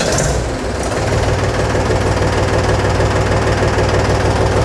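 Mahindra 265 DI tractor's three-cylinder diesel engine idling steadily, freshly started, heard close up from beside the bonnet.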